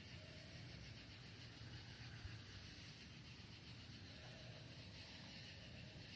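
Near silence: a faint, steady outdoor background hiss with a low rumble.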